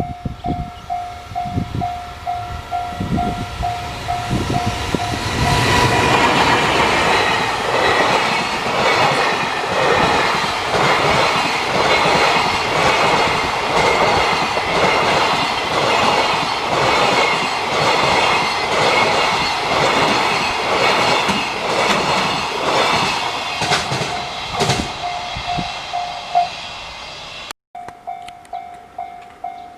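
Japanese level-crossing warning bell dinging in a steady pulse while a train runs through the crossing, its wheels clacking rhythmically over the rail joints for about twenty seconds. The bell is heard on its own at the start and again near the end, and the sound drops out briefly shortly before the end.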